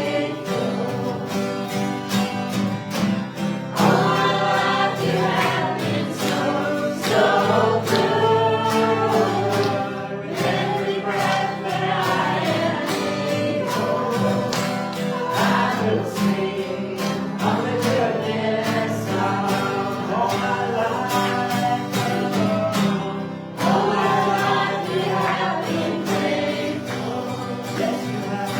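Worship song: a congregation and worship leaders singing together over guitar and band accompaniment with a steady beat.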